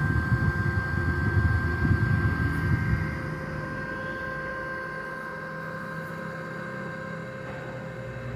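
Eastman e-rickshaw battery charger running under test: its cooling fan runs with a steady high whine over it. For the first three seconds the fan's air buffets the microphone, then the sound settles into a steadier low hum.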